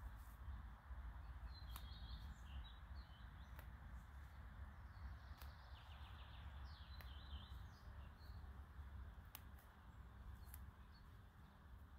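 Quiet outdoor ambience: small birds chirping in short runs of calls, about two seconds in and again around six to seven seconds, over a low steady rumble, with a few faint clicks.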